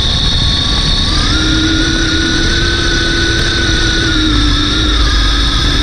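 Losi DBXL RC buggy's Lehner 3080 brushless motor running on 14S, a high steady electric whine that steps up in pitch about a second in and then holds, over a heavy low rumble, heard from a camera mounted on the car.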